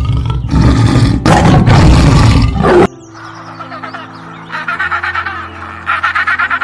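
A big cat roaring, loud and rough, cut off suddenly about three seconds in. Then background music with a rapid run of short pulsing calls from about four and a half seconds.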